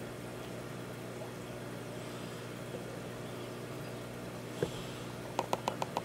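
Aquarium filter pump running with a steady electric hum and a faint wash of moving water. A knock about two-thirds of the way through, then a quick run of five or six short clicks near the end.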